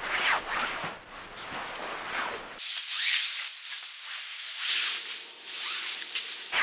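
Clothing rustling and rubbing in slow, soft swishes, about one a second, as a person crawls. Partway through, the deep part of the sound drops away, leaving it thin, as if heard over a phone line.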